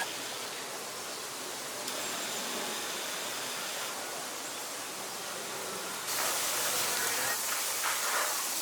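Steady rushing of flowing stream water, a continuous hiss that steps up louder and brighter about six seconds in.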